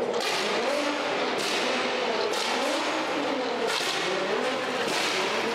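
Supercar engine revving in repeated rising and falling blips, with bursts of rushing noise over it.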